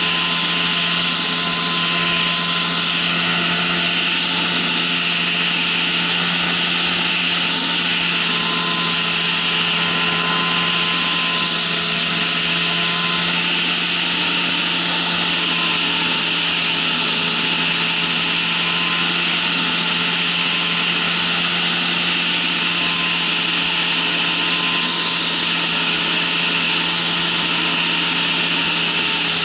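Ultralight trike's engine running steadily in flight, with a constant drone under a heavy rush of wind over the microphone.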